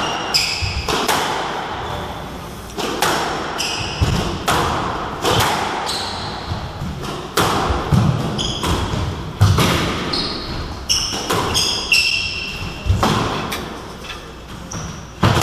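Squash rally: the ball is struck by rackets and hits the walls with sharp, echoing thwacks about once a second. Between the hits come short high squeaks from court shoes on the wooden floor.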